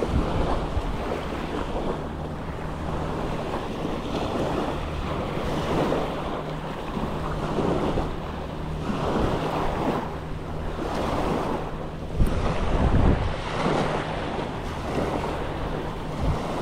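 Small waves washing onto a pebble beach, surging every second or two, with wind buffeting the microphone.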